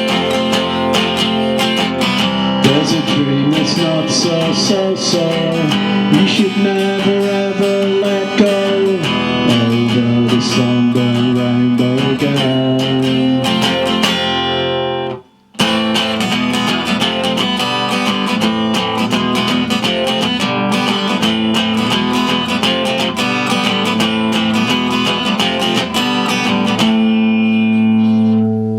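Solo acoustic guitar playing without singing, picked and strummed. It stops for a moment about halfway through, then starts again, and a held chord rings out near the end.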